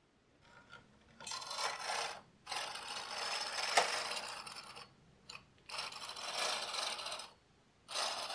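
Brother KA-8210 intarsia carriage being pushed by hand across the needle bed of a Brother KH-910 knitting machine: a rasping scrape as it slides over the needles, in four pushes with short pauses between them and a few small clicks.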